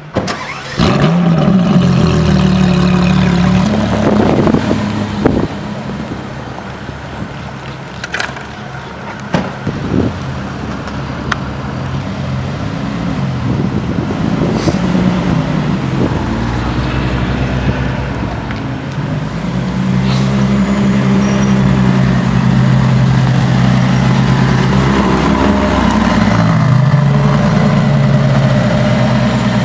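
Ferrari LaFerrari's V12 engine starting about a second in, then idling loudly and being revved several times, its pitch rising and falling.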